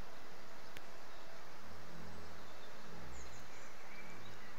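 Steady outdoor noise, with a few faint high bird chirps about a second in and again near three seconds. Low notes come and go underneath.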